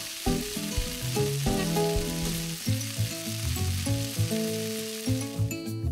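Marinated soya chaap and paneer sizzling on a hot ridged grill pan, a steady hiss that thins near the end. Background music plays underneath.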